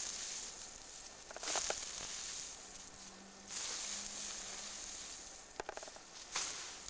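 Dry thatching straw rustling and crackling in several bursts as it is handled and pushed into a roof, with two short runs of quick crackles, about one and a half and five and a half seconds in.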